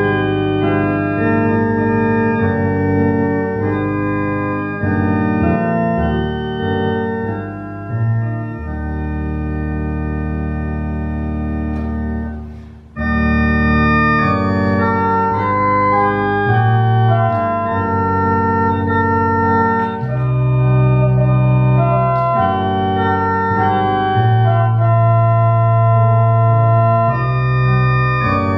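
Church organ playing a hymn in sustained, full chords. The sound breaks off briefly about thirteen seconds in, then resumes with the next phrase.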